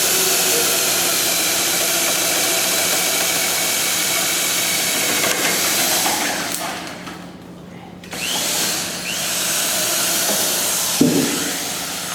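Power drill boring a peg (trunnel) hole through a timber rafter into a column. It runs steadily, eases off and stops about seven seconds in, then spins up and keeps drilling, with a couple of knocks near the end.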